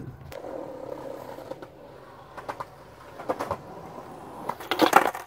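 Skateboard knocks and clacks on concrete: one sharp knock at the start, a few clacks about three seconds in, and a burst of loud pops and slaps near the end as the board is popped for an ollie and comes down.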